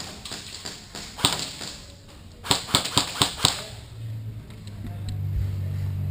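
Airsoft gun firing: one sharp shot, then a quick string of about five shots in a second. A low steady drone comes in after the shots.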